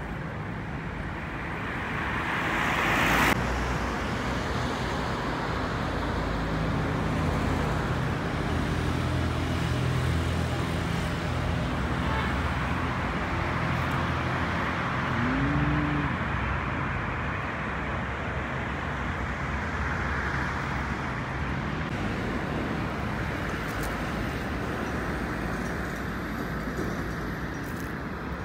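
City street traffic: a steady wash of road noise with engines humming as cars pass close by. About three seconds in, a louder swell of noise stops abruptly, and about halfway through there is a short tone that rises and falls.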